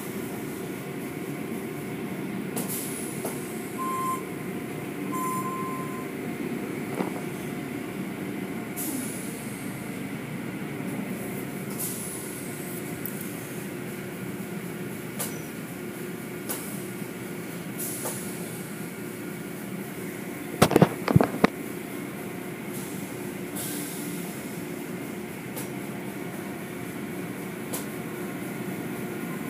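Automatic tunnel car wash running: a steady machinery hum with water spray hissing and the cloth strips and brushes swishing every few seconds. About two-thirds of the way in, a quick cluster of sharp knocks.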